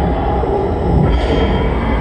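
Loud, steady underwater rumble from a dark ride's show audio, with a brief rushing swell about a second in.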